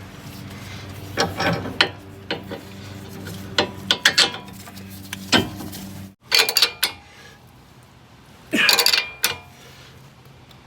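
Metal hand tools and suspension hardware clinking and rattling, a string of sharp clicks with a louder rattling burst about two-thirds of the way through, as a sway bar link is fitted and its nuts tightened.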